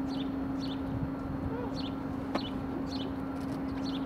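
A steady hum, with a small bird repeating short, high, falling chirps about twice a second over it, and a single sharp click a little past two seconds in.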